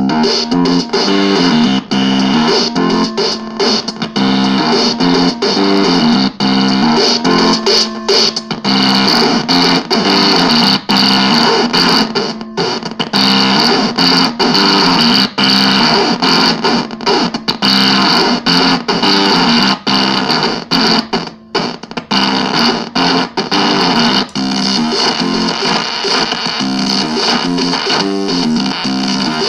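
Timebox Crunch analog synth box making a thick, distorted, noisy synth sound through a small guitar amp, its notes stepping up and down in a quick repeating pattern with a few brief breaks.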